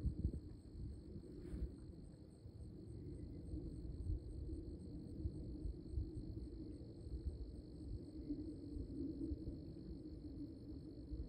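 Outdoor ambience: an uneven low rumble with a steady high, thin drone running over it.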